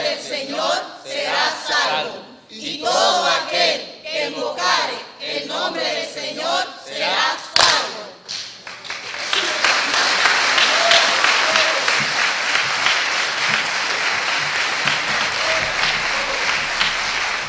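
A group of voices reciting together in unison in short phrases, then a single sharp knock, and about nine seconds in an audience bursts into steady applause.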